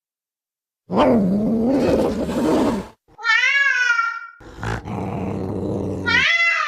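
Cat-like creature sound effects: about a second in, a rough, wavering growl lasting about two seconds, then a short meow that bends in pitch. After it comes a rough, raspy stretch with a sharp click, then another short meow near the end.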